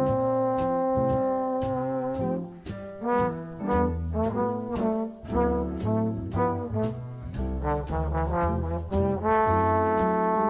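Background instrumental music: a melody of held and stepping notes, brass-like in timbre, over a bass line and a steady clicking beat.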